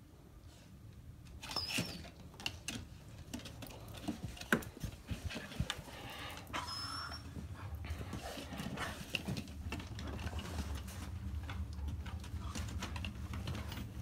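West Siberian laikas moving about and nosing each other on a wooden plank floor: paws and claws scuffling and clicking, with a couple of brief high squeaks. A steady low rumble sets in about halfway.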